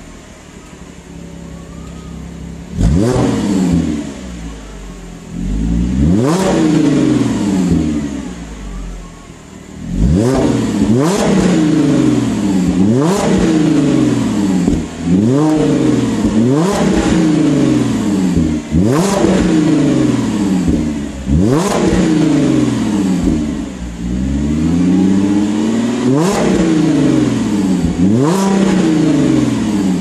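Audi S4 B8's 3.0-litre supercharged V6 through a Borla exhaust system, idling and then revved in place with sharp throttle blips. Each rev climbs fast and falls back. Two single revs come in the first few seconds, then a quick run of them from about ten seconds in.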